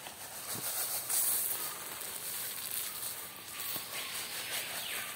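Cracked corn pouring and shaken out of a plastic sack, scattering over dry leaf litter: a rustling hiss, loudest about a second in. A faint, long, falling whistle sounds behind it.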